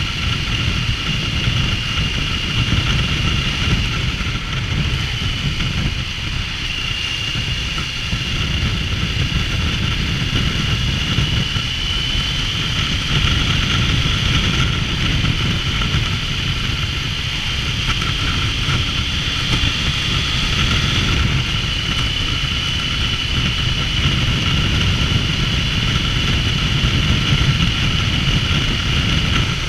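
Triumph Tiger 900 three-cylinder motorcycle running at steady road speed, heard through heavy wind rush on an action camera's microphone. A steady high whine rides over the wind, drifting slightly in pitch.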